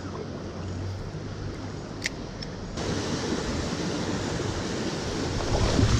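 Small stream running over rocks, a steady rush of water that steps up louder a little under three seconds in. A single sharp click sounds about two seconds in.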